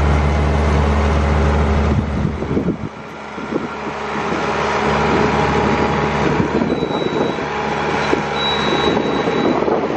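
AGCO Allis tractor's diesel engine running under load as it passes, its low drone falling away after about two seconds. Then the Kelly diamond harrow's chain discs clank and rattle steadily as they drag through sunflower stubble.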